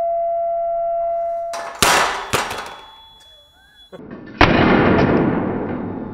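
Steady electronic tone of a helmet penetration-test rig, the signal that the striker has gone through the counterfeit helmet's shell and touched the metal headform; it cuts off about 1.5 s in. Then come loud metal impacts of the test striker, two close together around 2 s and another about 4.5 s in, with a long fading decay.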